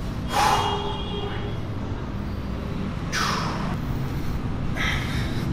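A man breathes out sharply three times, a few seconds apart, each breath about half a second long, while lifting dumbbells in seated lateral raises; the last is fainter. A steady low rumble runs underneath.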